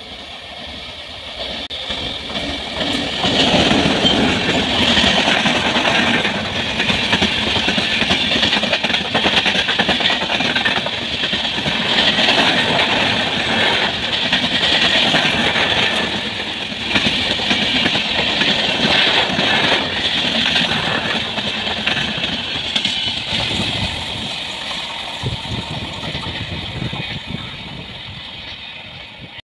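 Electric express train, a WAP-7 locomotive hauling passenger coaches, running through a station at speed. The rumble and clatter of the wheels on the rails build about two seconds in, stay loud for some twenty seconds as the coaches go by, then fade away near the end.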